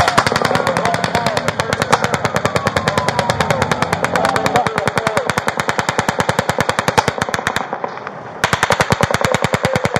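Sustained rapid gunfire from a rifle that sounds fully automatic: a long unbroken string of shots at close to ten a second. It breaks off for a moment near the end, then another burst begins.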